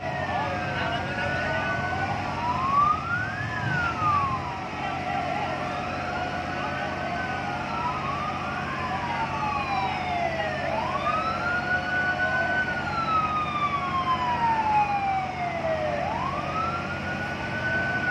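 Several fire truck sirens wailing at once, their rising and falling tones overlapping and out of step, over a steady tone and a low engine rumble.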